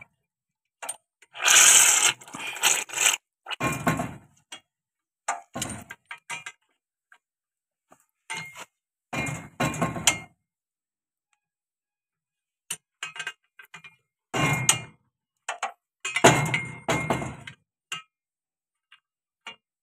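Spanner and steel fittings clinking and clanking in short bursts with gaps between, as a tractor's power steering cylinder and its hydraulic fittings are unbolted; the loudest cluster comes about two seconds in.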